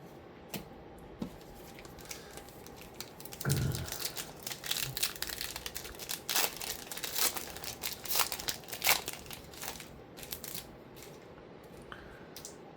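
Trading card pack wrapper being torn open and crinkled: a soft thump about three and a half seconds in, then about six seconds of dense crackling that dies away near the end.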